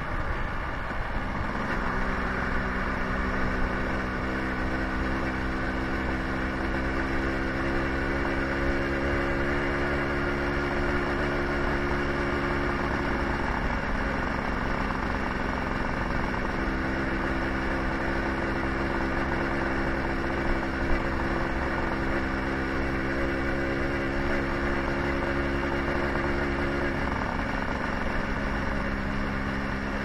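Suzuki scooter's small engine running at a steady cruising speed, with wind and road noise over it; the engine note eases off and changes pitch about halfway through and again near the end.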